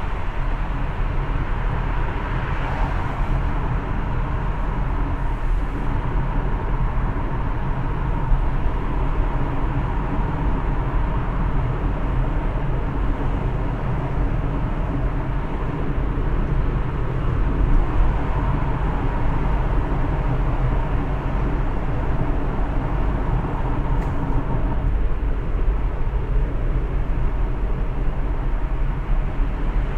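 A car driving along: a steady rumble of tyres and engine with no sharp sounds.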